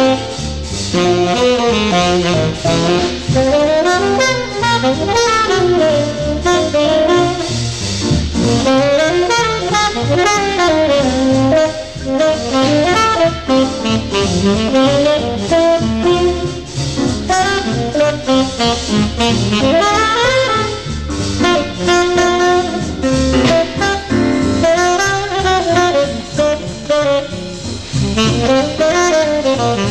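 Background jazz music with a saxophone playing a gliding melody.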